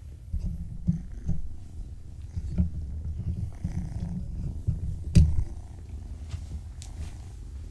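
Domestic cat purring close to the microphone, a low pulsing rumble. A few sharp knocks cut through it, the loudest about five seconds in, and the purring fades soon after.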